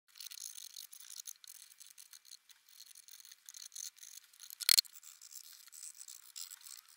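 A charcoal stick scratching and scrubbing over rough pallet-wood planks in quick, irregular strokes, a thin hissy rasp. One sharp, louder tap comes a little under five seconds in.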